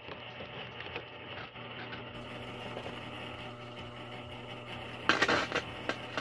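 Vox guitar amplifier switched on and humming with a steady electrical buzz, over small clicks and rattles of the guitar and cable being handled, with a short loud burst of crackling about five seconds in.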